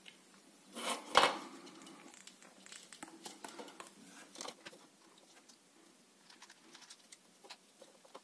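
Small plastic parts of an SVAVO V-370 soap dispenser's pump being handled and fitted together by hand: a sharp click about a second in, then faint scattered clicks and rubbing.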